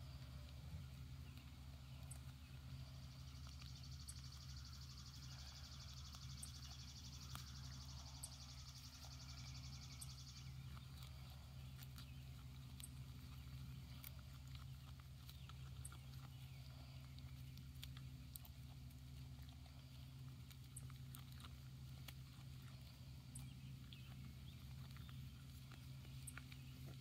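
Goats tearing and chewing grass close by: faint, scattered crisp ticks over a steady low rumble. A high, fast-pulsing buzz runs from about three seconds in until about ten seconds in.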